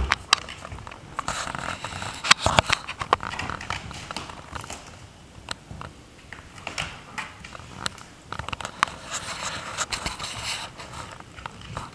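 Irregular scrapes, rustles and sharp clicks as a cat paws, claws and rolls on a rubber yoga mat, playing with a dangling toy.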